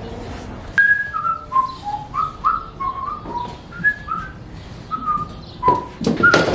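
A person whistling a tune in short notes of changing pitch, about two a second. A few sharp knocks come near the end.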